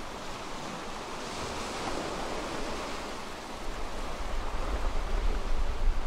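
Sea surf washing and foaming among volcanic rocks, a steady rushing hiss that swells about a second in. From about halfway, wind buffets the microphone with low, gusty rumbling that grows louder.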